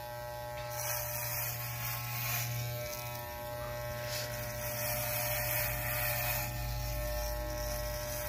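Corded electric hair clippers with a 1/8-inch (number 1) guard buzzing steadily as they are run over the scalp, cutting short hair. The hiss of the cut swells and eases several times as the strokes go on.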